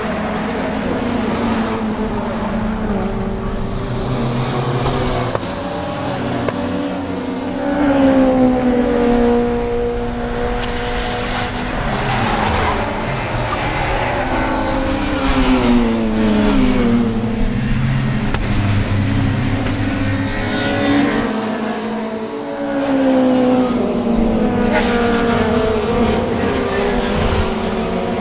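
WTCC touring-car engines running hard on a race circuit: several cars rev up through the gears and pass, their pitch falling as they go by, over the steady note of another engine.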